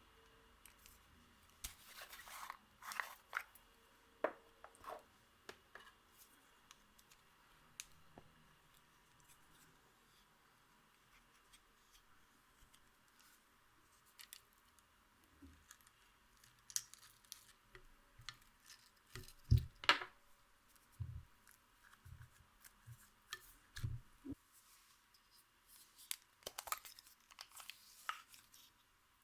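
Slime-mixing handling sounds: scattered faint clicks, crackles and soft squishes, with a louder pair of clicks about two-thirds of the way through.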